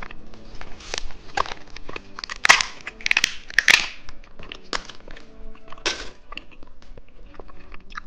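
Plastic candy packaging crinkling and crackling in a handful of short bursts, loudest in the middle, over soft background music.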